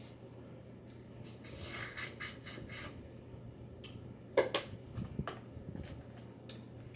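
Close-up eating sounds from a seafood boil of shrimp and snow crab legs: a run of wet, crackly chewing and smacking strokes, then a couple of sharp clicks about four and five seconds in, over a low steady hum.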